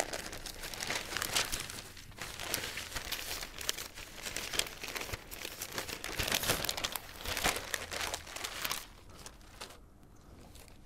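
Paper rustling and crinkling as sheets are handled, a dense irregular crackle that dies away about nine seconds in.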